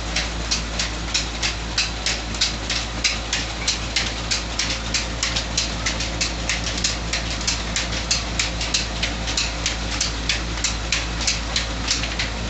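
Electric stone flour mill (atta chakki) running, driven by a 25 HP electric motor through a long flat belt: a steady low hum with a regular sharp clicking about three times a second.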